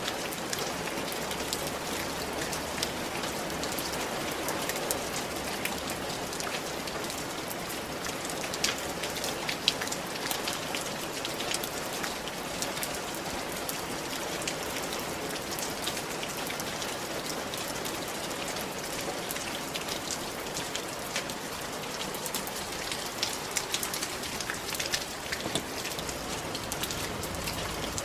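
Steady rain falling on a tiled roof, a constant hiss with many separate drop taps and patters on the tiles.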